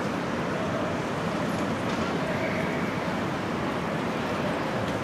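Busy city street ambience: a steady wash of traffic noise with indistinct voices.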